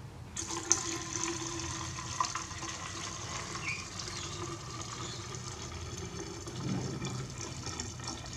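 Fuel pouring out of a 26cc string trimmer's fuel tank into a container as the tank is drained: a steady splashing pour that starts about half a second in.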